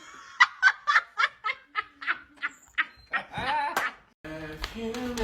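A person laughing in a run of short quick bursts, about four a second, ending in a longer voiced breath of laughter.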